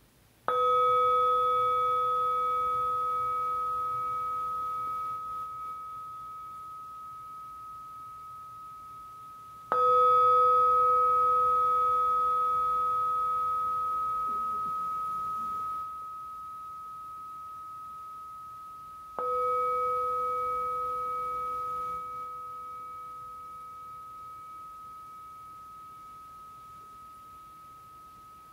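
A handheld metal singing bowl struck three times with a wooden mallet, about nine seconds apart. Each strike rings on as a low tone and a higher, clear tone that slowly fade, the last one still ringing at the end.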